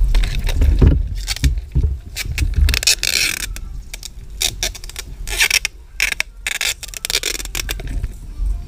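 Adhesive tape being pulled off its roll in a run of short rips, with one longer strip about three seconds in, as it is wrapped around a long tube on a scooter. Rustle and bumps of handling mix with it.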